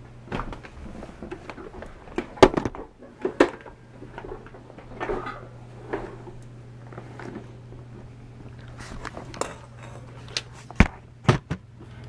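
Irregular handling knocks and clicks, loudest about two and a half seconds in and twice near the end, over a low steady hum.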